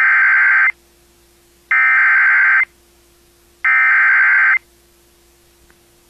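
Emergency Alert System SAME header: three bursts of digital data tones, each just under a second long and about a second apart, encoding a National Weather Service severe thunderstorm warning.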